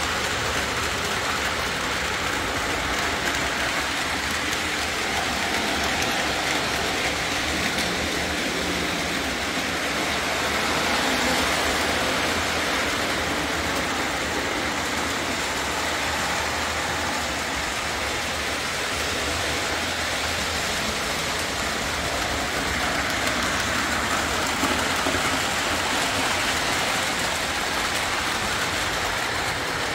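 Lionel O-27 Alco diesel model trains running on three-rail tinplate track, a steady motor whir and wheel rumble that swells slightly a couple of times.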